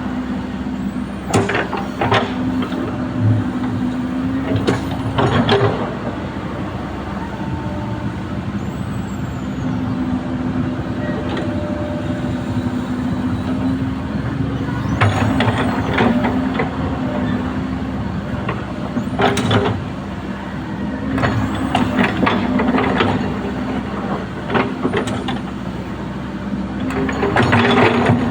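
Komatsu hydraulic excavator's diesel engine running steadily, with scattered knocks and clattering throughout and a cluster of them near the end.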